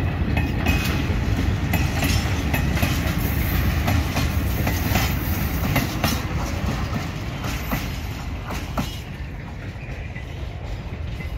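Freight train of phosphate hopper wagons rolling past, the wheels clattering over the rail joints in a steady clickety-clack. The clatter thins and fades near the end as the last wagon goes by.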